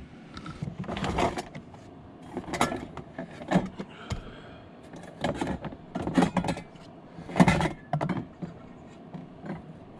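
A series of irregular knocks, clatters and rustles, the loudest about seven and a half seconds in: someone moving about and handling gear, getting a coffee setup out.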